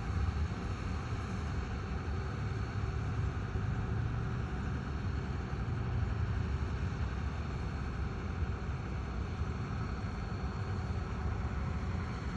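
Heavy construction machine's engine running steadily at work, a continuous low rumble with a faint high whine above it.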